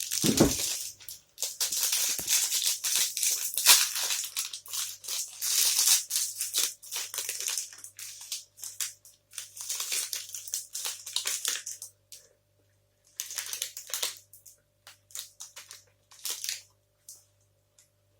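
Plastic wrapper of a protein bar crinkling as it is torn open and handled: dense crackling for about twelve seconds, then a few shorter rustles near the end.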